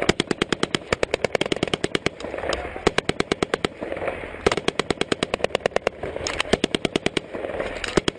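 Automatic gunfire in repeated bursts, rapid shots at about ten a second, with short pauses between bursts.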